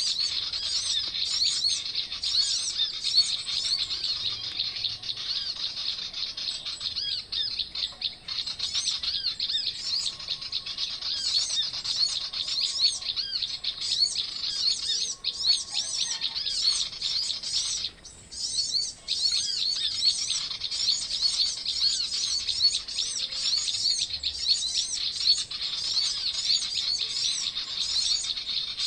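Dense, continuous high chirping and twittering of many small birds, with a short break about 18 seconds in.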